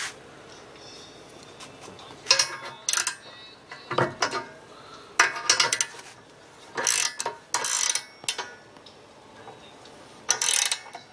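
About half a dozen short bursts of metal-on-metal rasping and ratchet-like clicking from a homemade steel sheet metal bender's spring-loaded clamp bolt as it is worked.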